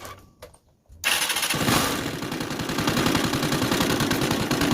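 Honda CG 150 motorcycle's single-cylinder four-stroke engine catches suddenly about a second in and runs with a rapid, even beat. It carries the internal noise that sounds like a stone inside, which the mechanic says is not valve noise but something deeper in the engine.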